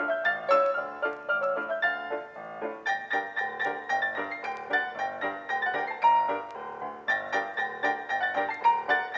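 Background piano music playing a quick run of short notes at an even pace.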